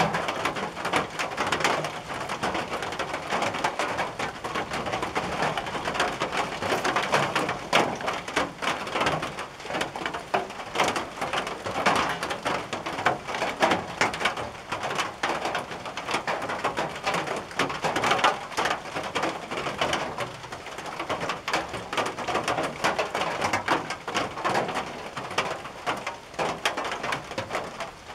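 Rain pattering on a tin roof: a dense, irregular stream of drops striking the metal, steady throughout.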